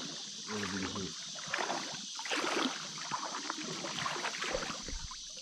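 Shallow river water splashing and sloshing as a hooked fish is brought in to the bank, over the steady rush of the flowing river. A brief voice sounds about half a second in.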